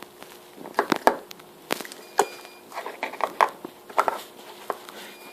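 Slime being played with by hand, giving irregular sticky clicks and pops, some in quick clusters.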